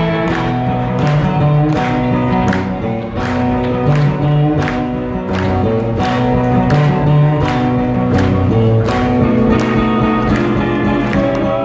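Live acoustic guitar strummed in a steady rhythm through a PA system, its chords ringing out.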